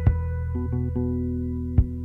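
Background music: the instrumental opening of a song, held chords with a sharp beat near the start and another near the end.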